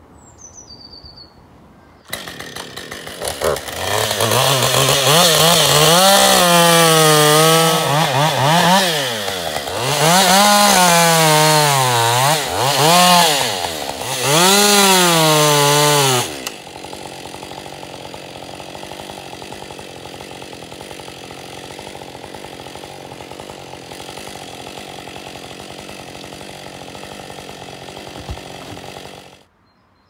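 Husqvarna chainsaw cutting through a felled lime trunk: it comes in suddenly a couple of seconds in, its engine revving up and dipping in pitch again and again as the chain bites into the wood. About halfway through it drops abruptly to a quieter, steady running, which cuts off near the end.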